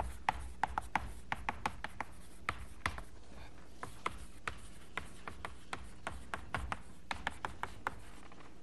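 Chalk writing on a blackboard: an irregular stream of sharp taps and short scratches as words are written out.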